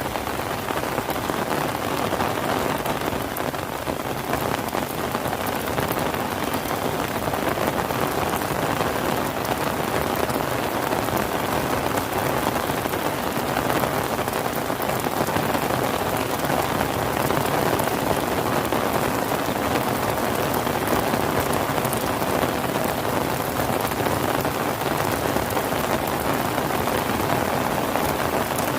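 Steady rain falling on surfaces, an even hiss of many drops that neither builds nor fades.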